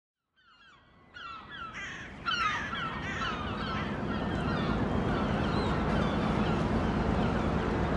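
A flock of birds calling, many short falling cries overlapping, fading in over the first couple of seconds over a low steady rumble of harbour ambience.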